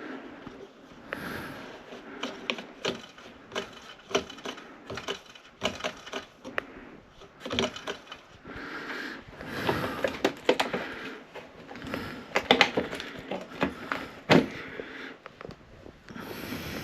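Clips on a bathroom exhaust fan's housing being worked loose by hand: irregular clicks, creaks and scraping, with a few louder knocks in the second half.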